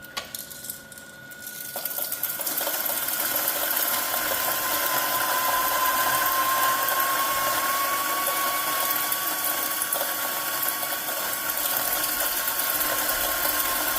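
Timemore Sculptor 078S electric coffee grinder running, its 78 mm flat burrs grinding coffee for espresso. A few clicks come first, then about two seconds in a steady motor whine with a grinding hiss begins and holds.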